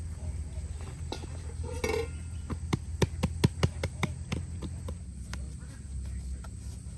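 A knife chopping on a cutting board: a quick run of sharp knocks, about four or five a second, for some two seconds in the middle.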